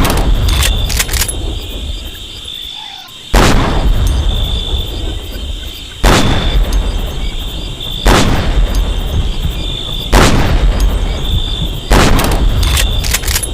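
M40A1 bolt-action sniper rifle (7.62×51 mm) firing five single shots about two seconds apart, each a sharp crack followed by a long rolling echo. A few light clicks come between shots.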